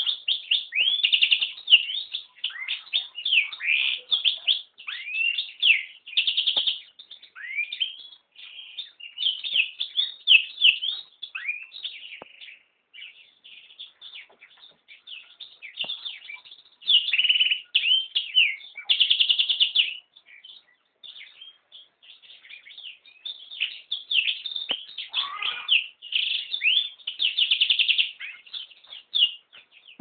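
Yellow-rumped serin × canary hybrid singing: a long, varied song of rapid trills and chirps, with a couple of quieter spells partway through.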